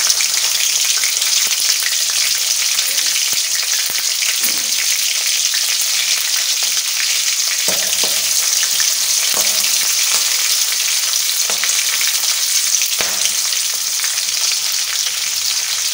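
Green chillies and mustard seeds sizzling in hot oil in an aluminium kadai, a steady frying hiss. A metal ladle stirs them, scraping and knocking against the pan a few times.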